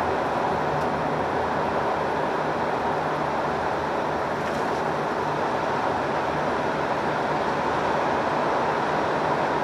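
Steady engine and tyre noise of a Hino Profia truck driving at an even speed, heard from inside the cab.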